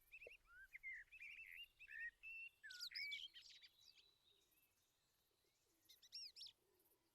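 Faint songbirds chirping: a quick run of short, sweeping chirps over the first few seconds, a pause, then a few more near the end.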